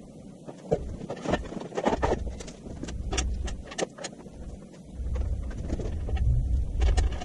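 Sped-up time-lapse audio of assembling a metal CNC plasma table: a rapid jumble of clanks and knocks over a low rumble.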